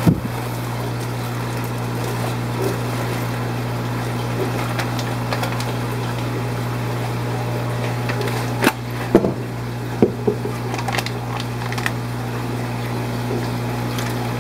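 Steady mechanical hum of running equipment, like a fan or pump, with a handful of short knocks and clicks from handling things about two-thirds of the way through.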